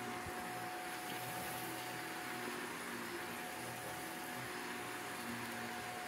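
Shark upright vacuum cleaner running steadily, its motor giving a constant whine over the rush of air as the floor head sucks up loose pet bedding from a rug.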